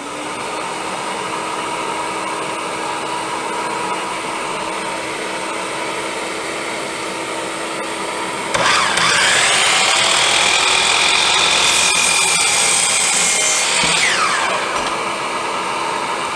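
Steady machine hum, then the Hercules dual compound miter saw's motor is switched on about halfway through: a high whine that rises quickly in pitch, runs for about five seconds, and winds down near the end as the blade slows.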